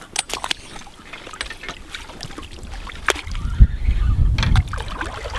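Scattered short splashes and sharp clicks as a hooked pike is played close in to the bank on a rod and fixed-spool reel. A low wind rumble on the microphone builds from about three seconds in.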